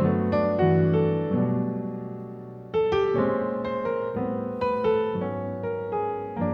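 Background piano music: chords and a melody of struck notes that ring and fade, with a fresh, louder chord a little under three seconds in.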